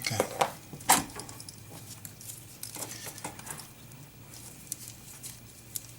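Small clicks and taps of tools and parts being handled on an electronics workbench, the loudest about a second in, then a run of lighter ticks and rattles.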